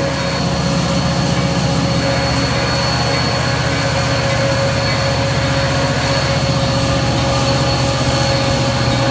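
CSX diesel-electric freight locomotive passing close by under heavy throttle: a loud, steady engine drone with a continuous high whine over it.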